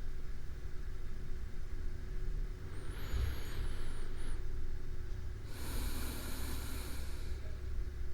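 A sleeping person breathing slowly: a softer breath about three seconds in with a faint high whistle, then a fuller, longer breath about five and a half seconds in, over a steady low rumble.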